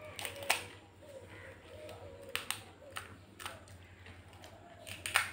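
Crisp fried fuchka (pani puri) shells cracking and crunching in a few short, sharp crackles, the loudest about half a second in and just before the end.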